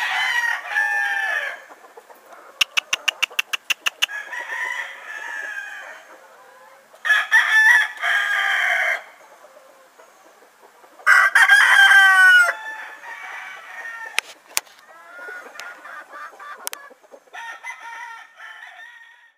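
Roosters crowing three times, each crow about two seconds long and several seconds apart, with hens clucking between the crows. A quick run of sharp clicks comes about three seconds in.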